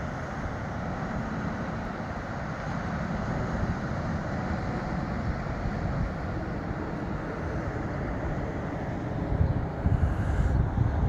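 Wind buffeting the microphone over a steady outdoor rush, with stronger gusts near the end.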